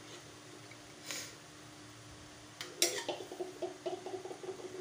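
Steel thali plates handled and set down on a hard floor: a sharp clank about three seconds in, then a run of light metallic knocks and rattles, over a steady hum.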